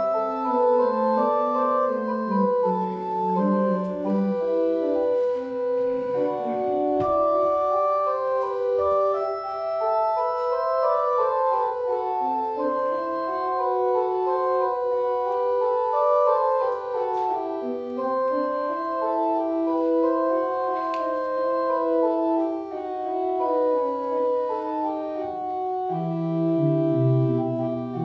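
Organ playing the service prelude: a slow piece of held chords, with several voices moving note by note without a break.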